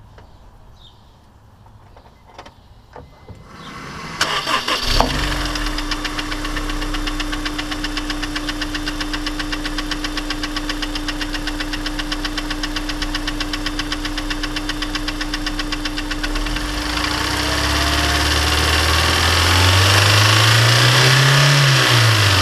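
A Honda S2000 four-cylinder engine is cranked and catches after a few clicks. It idles with a fast, even ticking knock, then revs up and comes back down near the end. The noise comes from a scraped piston in cylinder 1, whose cylinder was warped when an oil squirter failed.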